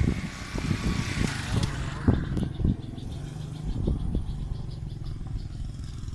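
A motorcycle passing close by on a wet road, its engine and tyre hiss swelling and fading over the first two seconds or so, with a sharp thump about two seconds in. After that a steady low engine hum continues from farther off.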